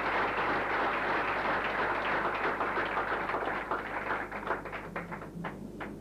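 Audience applauding, a dense clatter that thins out into a few scattered single claps near the end.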